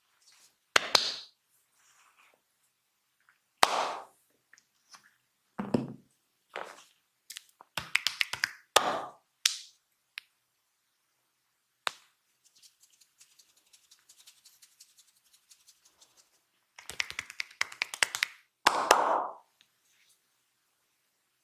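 Massage hand sounds on skin: separate slaps and taps, some in quick flurries, with a few sharp clicks and faint rubbing between them.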